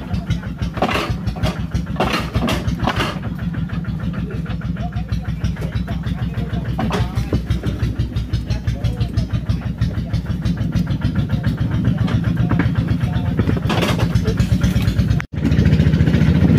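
Engine of a motor lori (motorised rail cart) running steadily underway, with a low hum and a fast rattle. It cuts out for an instant near the end, then comes back louder.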